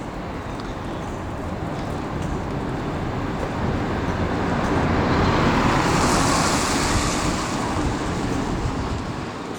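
Street traffic, with a road vehicle passing close by: its noise grows over a few seconds, peaks about six seconds in, then fades away.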